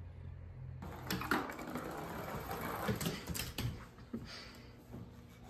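A ragdoll kitten's paws scampering and a toy mouse skittering across a hardwood floor and rug: a run of irregular sharp clicks and rustles starting about a second in, after a low steady hum.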